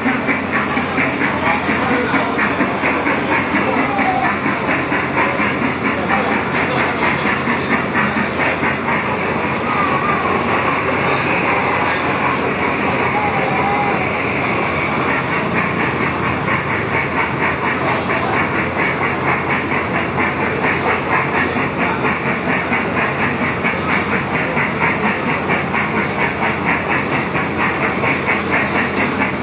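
Small Thomas the Tank Engine kiddie ride train running on its track, a steady, fast rhythmic clatter with a hiss.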